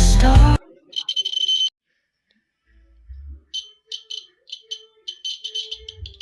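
Background music cuts off about half a second in; then a homemade earthquake detector alarm's buzzer sounds in short, shrill beeps, in uneven bursts several a second, with a few low thumps among them.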